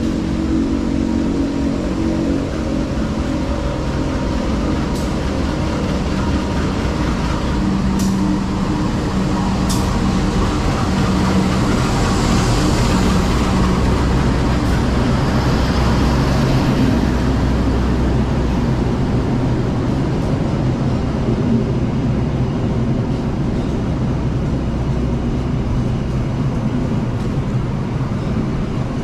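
Train noise: a steady low rumble with a droning engine hum, swelling a little with more hiss about halfway through, and a few faint clicks early on.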